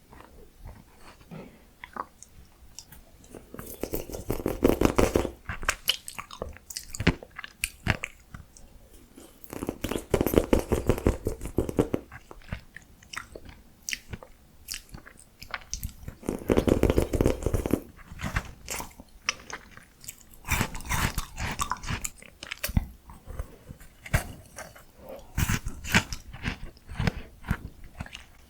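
Close-miked eating sounds: miniature ice cream being bitten and chewed, in about five dense bouts of clicking mouth sounds a few seconds apart, with scattered single clicks in between.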